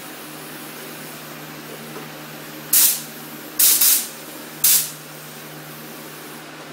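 Air-powered paint spray gun triggered in short hissing bursts, the air spraying 2K primer: one burst, then two close together, then one more, each lasting well under a second, over a steady background hum.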